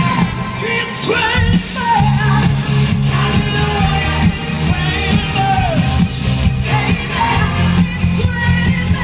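Live pop-rock song: a singer holds and slides through high notes over a band with electric guitars, bass and drums.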